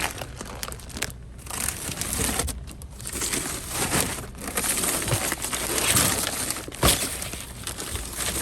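Plastic crinkling and rustling in irregular handfuls as grocery bags and packs of bottled water are handled, with one sharp knock about seven seconds in.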